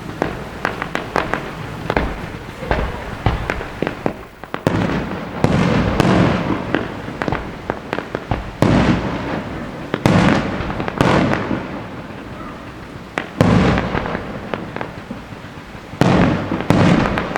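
Fireworks display: a continuous stream of sharp cracks and crackle, broken by about eight heavier booms of bursting shells, each ringing out and fading over a second or so.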